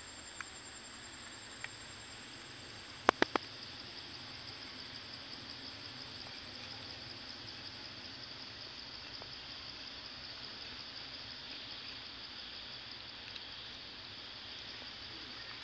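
Steady insect chorus, a fast high trill, with a thin high whine that fades out midway. Three sharp clicks in quick succession about three seconds in.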